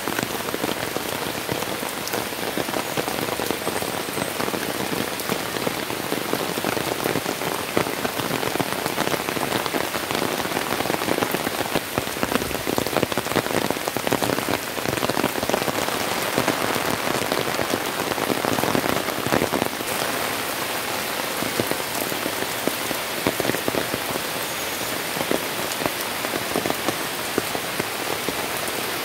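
Monsoon rain falling on garden foliage: a steady, dense hiss with many close drops ticking on leaves, a little heavier midway.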